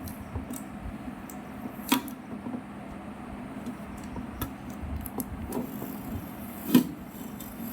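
Scattered clicks and knocks of a box being handled while someone tries to open it, with two sharper knocks about two seconds in and near the end.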